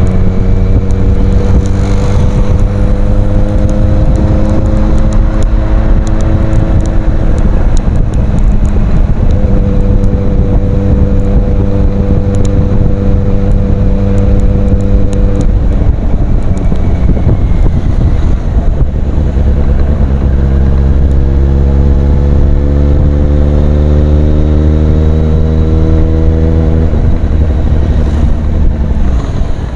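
Kawasaki Z800's inline-four engine running loud through an aftermarket Ixil exhaust while the bike is ridden. Its note climbs slowly under load twice, with a steady-pitched stretch between.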